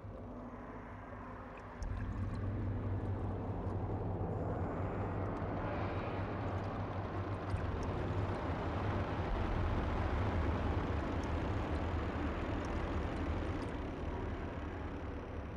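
Underwater water noise: a steady rushing hiss with a low rumble that comes in suddenly about two seconds in and then runs on evenly.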